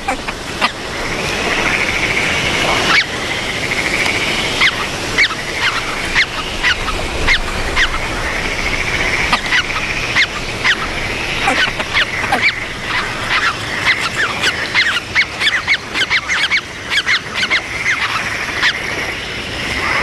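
Great crested grebe chicks calling on the nest: many short, high-pitched peeps, irregular and overlapping, over a thin steady whistling, as the chicks beg to be fed.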